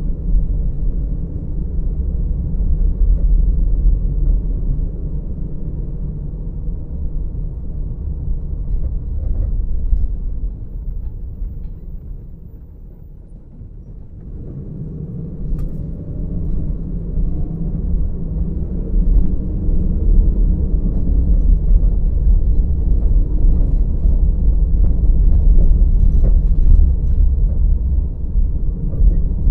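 A car driving, with steady low road and engine rumble. It quiets as the car slows and stops at an intersection about halfway through, then builds again as the car pulls away.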